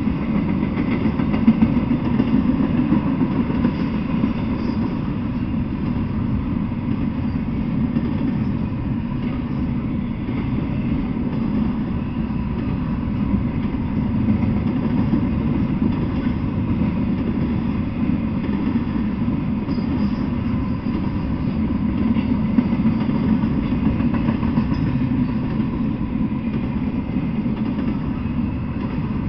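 Intermodal freight train's double-stack container cars and trailer flatcars rolling past, a steady low noise of steel wheels on the rails that holds without a break.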